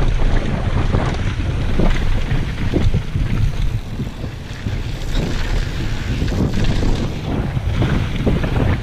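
Wind buffeting the camera's microphone as a mountain bike rides fast down a dirt trail, with the tyres rumbling over gravel and many short knocks and rattles from the bike over bumps.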